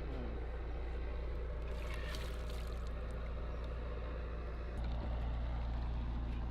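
Boat engine running with a steady low drone that gets louder and a little deeper about five seconds in, as the throttle changes.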